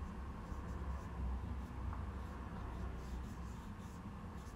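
Soft scratchy strokes of a flat watercolour brush across cold-pressed cotton paper, several light touches, over a steady low hum.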